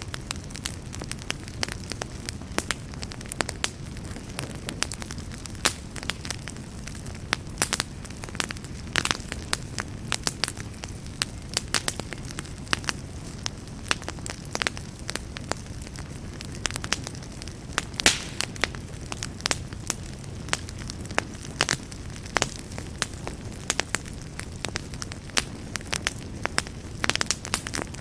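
Fire crackling in a fireplace: many irregular sharp snaps and pops over a steady low rumble of flames.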